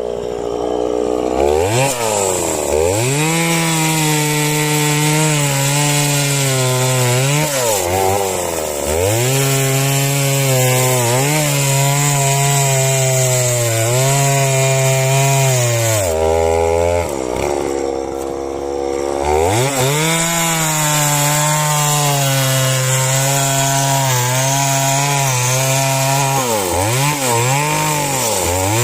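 Two-stroke chainsaw cutting into a tree at high revs under load, its pitch dipping and swinging back up as the throttle is eased and reapplied. It drops to a low idle for a few seconds past the middle, then revs up and cuts again.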